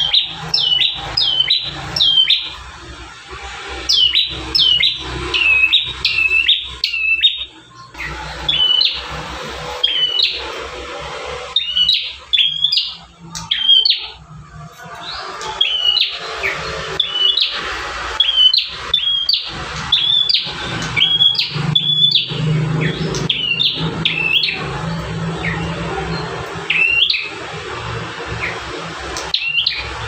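Caged tailorbird (prenjak tamu) singing: loud, sharp, high notes repeated in quick bursts of three to five, with short pauses between bursts.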